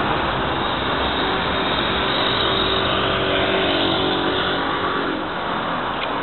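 Road traffic: a car going past, its engine hum heard for a few seconds and fading about five seconds in, over a steady rushing noise.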